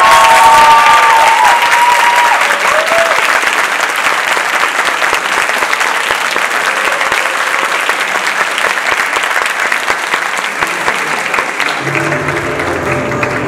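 Theatre audience applauding, with whoops and cheers in the first few seconds. Music comes in low underneath about twelve seconds in.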